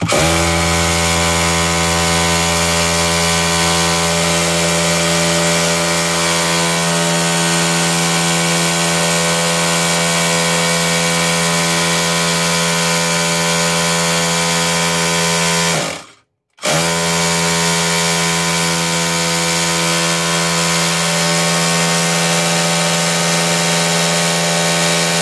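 Hammer drill in hammer mode running at full speed against the agitator bolt of a Maytag Bravos MCT washer, hammering to break the stuck agitator free: a steady motor whine with a dense rattle. It runs for about sixteen seconds, stops abruptly for half a second, then starts again.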